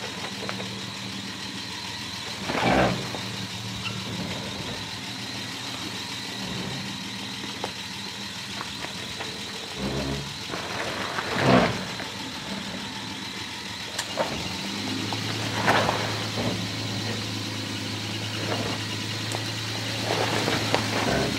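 Nissan Patrol 4WD's engine running at low revs as it crawls up a steep rocky hill, with four brief louder surges as it works over the rocks, the loudest about halfway through.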